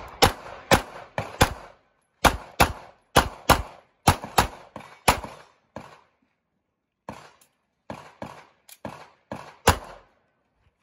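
A semi-automatic pistol firing a string of about twenty rapid shots, many in quick pairs, with a pause of about a second midway; each shot is sharp with a short echo, and the later shots are a little fainter.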